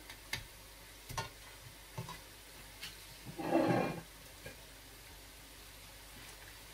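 Potato-coated scotch eggs deep-frying in oil with a steady sizzle. A metal spatula and tongs click against the pan a few times, and there is one louder, brief scraping burst about three and a half seconds in.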